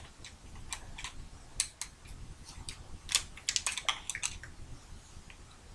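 Small irregular clicks and scrapes of a screwdriver working a screw in an electronic drumstick, busiest just past the middle.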